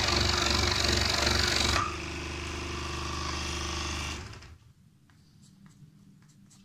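Electric scroll saw cutting through a 20 mm fir block with an omnidirectional blade, its blade stroking rapidly and evenly. Just under two seconds in, the blade breaks through and the saw keeps running, quieter, without load. Near four seconds in it stops.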